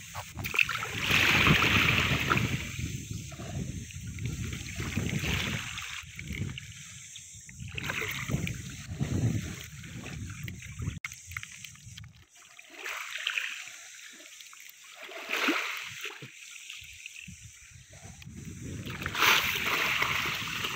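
Water splashing and sloshing in irregular surges with quieter gaps, loudest about a second in and again near the end.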